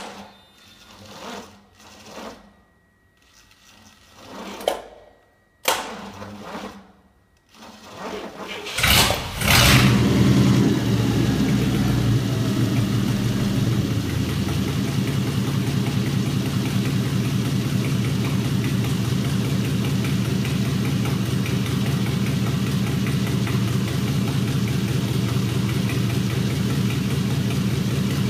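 1948 Cadillac 346 flathead V8 being started: several short cranking attempts, then it catches about nine seconds in and settles into a steady idle with the throttle closed.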